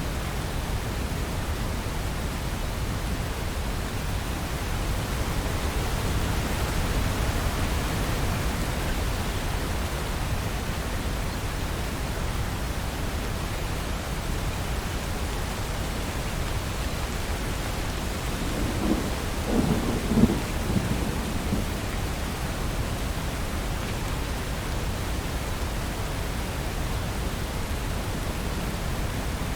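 Steady rain falling, with thunder: a short spell of crackling thunder about two-thirds of the way through is the loudest moment.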